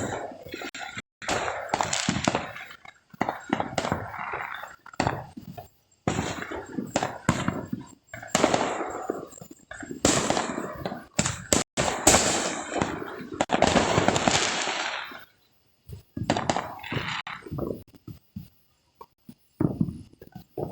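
Fireworks going off in a run of sudden bangs and crackles, each dying away over about a second, thinning out to scattered pops for the last few seconds.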